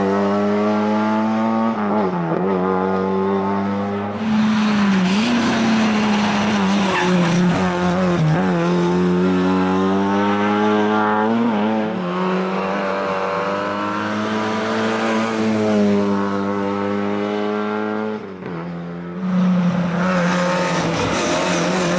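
Lada 2107 Group A rally car's four-cylinder engine run hard at high revs, its pitch dropping and climbing again several times as it shifts and lifts for corners. Near the end the sound falls away briefly, then comes back loud.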